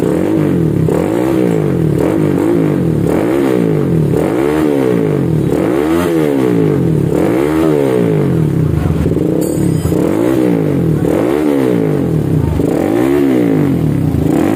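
Suzuki Satria FU's single-cylinder four-stroke engine running at low revs through a racing exhaust with an oversized header pipe, its speed rising and falling about once a second as the throttle is held just off idle. The engine is on the edge of stalling at idle, which the mechanic puts down to the carburettor needle rather than the engine itself.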